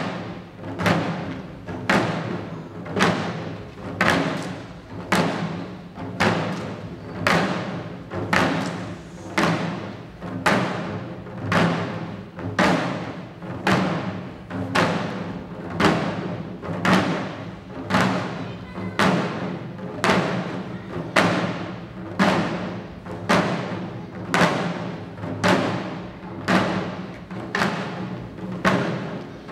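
Shishi odori deer dancers beating the small taiko drums slung at their waists, a steady beat of about one stroke a second.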